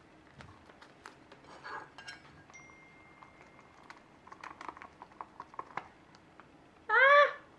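Light clicks and crinkles of a plastic bag holding honeycomb and a plastic plate being handled. Near the end, a short loud pitched sound that sweeps up and back down.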